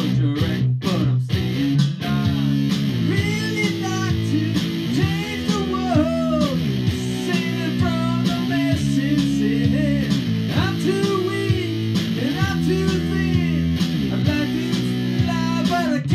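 Live electric guitars playing a rock song with a man singing over them. A few short, chopped chords come first, then held chords run under the sung line.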